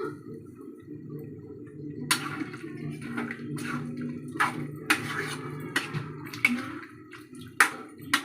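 Chicken cooking in a kadai in oil and its own juices, bubbling steadily. From about two seconds in comes a run of sharp, wet sizzling strokes roughly once a second as the pan is worked.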